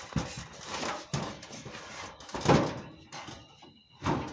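Handling noise from a phone being passed from hand to hand: clothing rustling against the microphone and irregular bumps and knocks, the loudest about two and a half seconds in.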